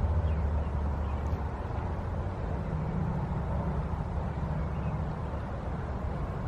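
Steady low rumble of distant interstate truck traffic.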